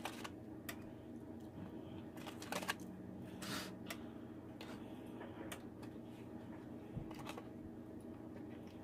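Soft scattered taps and rustles of Samoa cookies being pressed by hand into brownie batter in a parchment-lined pan, over a faint steady hum.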